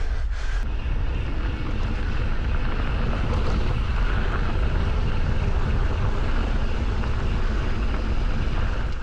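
Wind buffeting the microphone: a steady, loud low rumble with a rushing hiss over it, cutting off abruptly at the end.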